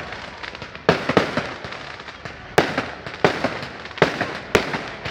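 Burning bonfire: a steady crackle with sharp, loud pops going off at uneven intervals, about six in all.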